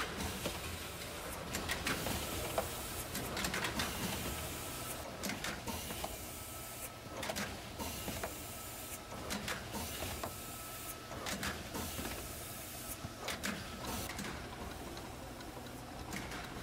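An automatic chuck starwheel capping machine runs as its starwheel indexes large plastic jars while the chucks pre-spin and torque the caps on. It makes a steady mechanical hum with sharp clicks and knocks about every second.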